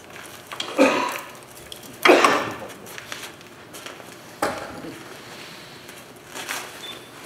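A turning tool cutting into a banksia pod spinning on a wood lathe, in four short rasping cuts; the second cut is the loudest and the last is faint.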